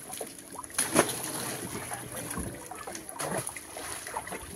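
Shallow pond water sloshing and splashing as live fish are tossed into the pond and scooped from a drum of water, with a sharp splash about a second in.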